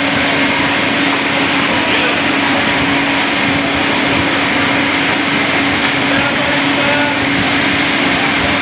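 Busy street ambience: a steady loud noise with an unbroken low hum under it and faint voices of people nearby.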